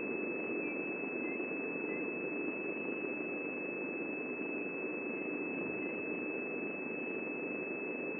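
A steady high-pitched tone held on one note over a constant hiss, typical of electronic interference in a live broadcast's audio feed.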